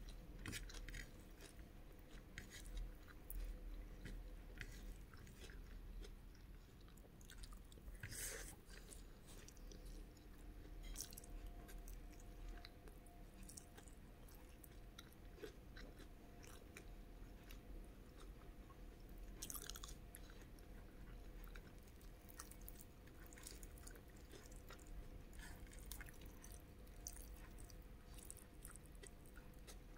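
Faint close-miked chewing of soft food (chickpea curry with rice), with irregular small wet mouth clicks, over a faint steady background hum.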